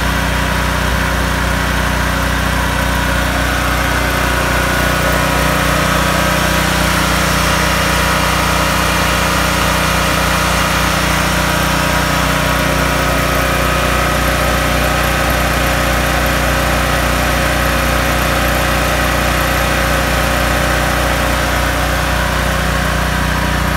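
Westinghouse WGEN12000DF dual-fuel portable generator running steadily on natural gas, its engine holding an even speed.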